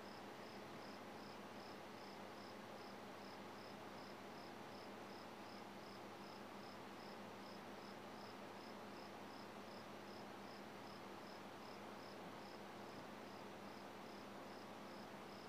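Near silence: faint room tone with a low steady hum and a soft high chirp pulsing evenly about twice a second.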